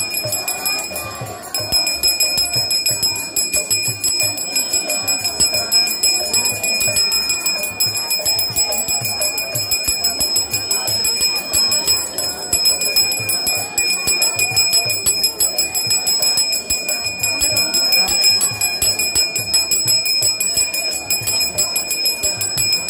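Metal worship bell rung continuously and rapidly, a steady high ringing that falters briefly about a second and a half in, with a mix of other festival sound beneath.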